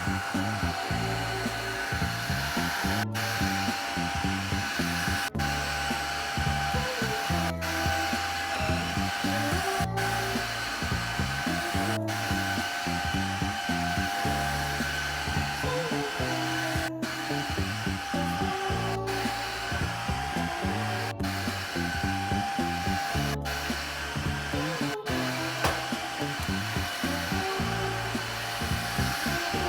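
Xiaomi vacuum cleaner motor running steadily with a constant high whine and airflow rush. Music with a bass line plays underneath.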